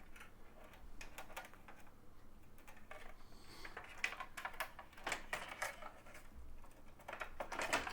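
Scattered light clicks and taps of a computer power supply and its cables being handled and fitted into a small PC case, busiest around the middle and again near the end.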